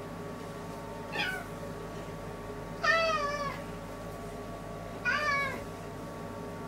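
Domestic cat meowing three times: a short call about a second in, a longer, louder one about three seconds in, and another near the end, each falling in pitch.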